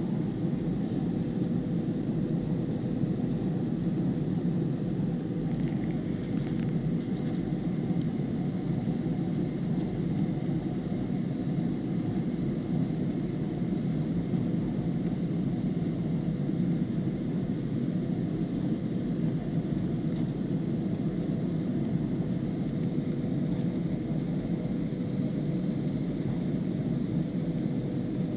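Steady low rumble of a vehicle in motion, with a faint constant hum.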